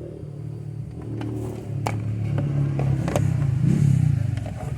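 A car engine runs with a low, steady hum that swells louder towards the end. A few light clicks sound over it.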